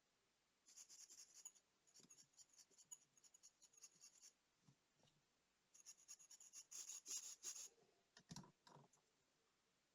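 Quick, rapid scratching and rubbing strokes of a small tool on a small hard part, in two spells of a few seconds each, followed by two soft knocks near the end.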